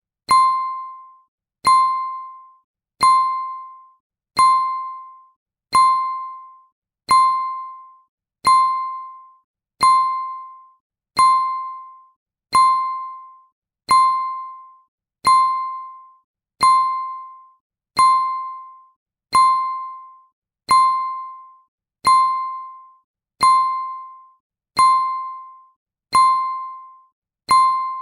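A single bell struck over and over at the same pitch, one clear ding about every second and a half, each dying away quickly before the next strike.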